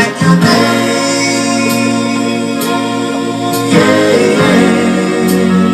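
Background music: a soft-rock song with acoustic guitar and a long held sung note that changes about four seconds in.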